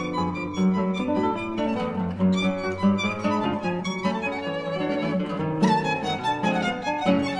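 Instrumental intro music with a fast-moving melody of short notes.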